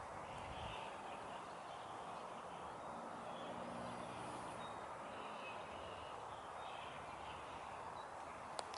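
Quiet outdoor ambience: a steady faint hiss with a few distant bird calls.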